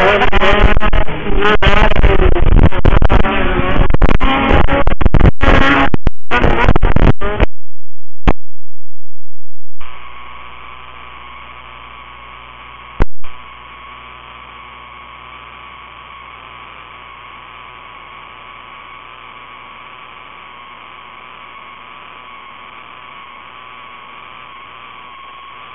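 Loud, heavily distorted live-stream audio, a clipped jumble of music and engine noise, that breaks up and cuts out about seven seconds in. After a short dropout it gives way to a steady electrical hum with a constant high whine and a single click: a dead audio feed.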